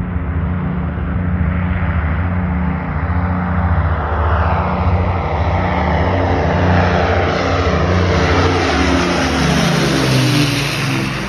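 Avro Lancaster bomber's four Rolls-Royce Merlin piston engines running as it flies low towards and over the listener. The sound grows louder as it approaches, and the engine pitch drops as it passes overhead near the end.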